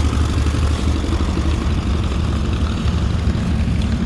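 An engine running steadily at low speed, a deep even rumble with a fast firing pulse.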